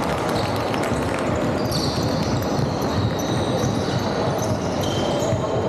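Basketball game on a wooden indoor court: the ball bouncing as it is dribbled, with short high sneaker squeaks, over a steady hall hubbub.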